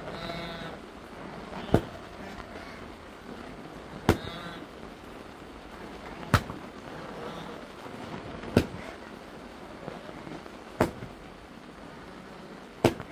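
Six sharp single strikes at an even pace, about one every two and a quarter seconds, like a hard tool or object striking something. A short pitched cry is heard at the start and again just after the second strike.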